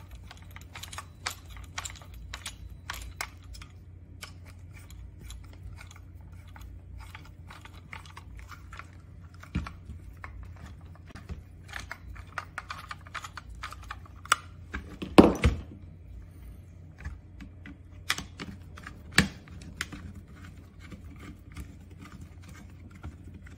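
Allen key tightening the screws on an electric scooter's handlebar display unit, with scattered light clicks and ticks from the key and the handled housing. A louder knock comes about fifteen seconds in.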